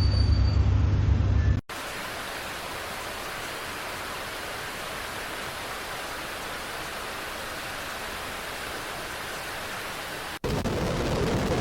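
Steady rain and rushing-water noise in three cut-together stretches. A deep low rumble stops suddenly about a second and a half in, giving way to an even hiss of heavy rain. About ten seconds in, a louder, deeper rushing sound takes over.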